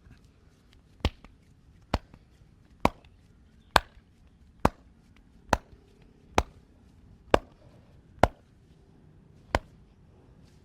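Massage strikes: a hand slapping or chopping on the body ten times in an even rhythm, about one sharp smack a second.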